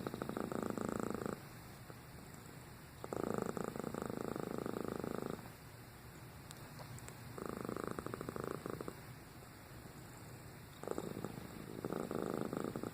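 Domestic cat purring in loud stretches of one to two seconds, with quieter gaps of about two seconds between them.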